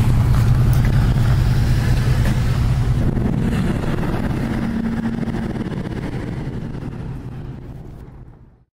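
Road traffic: a steady low noise of passing cars that fades out gradually and is gone just before the end.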